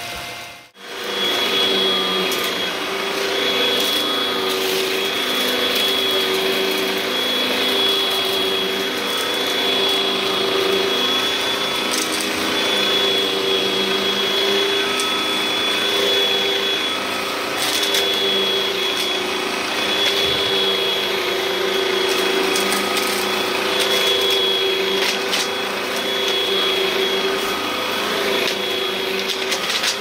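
Hoover upright vacuum cleaner running steadily on carpet, its motor and brushroll giving a constant whine, with scattered faint crackles of debris being picked up. Another vacuum is heard for a moment before the sound cuts abruptly under a second in.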